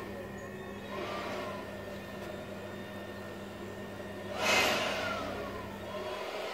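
Steady electrical hum of the high-voltage Lichtenberg wood-burning setup, with a loud hissing surge about four and a half seconds in that fades over a second.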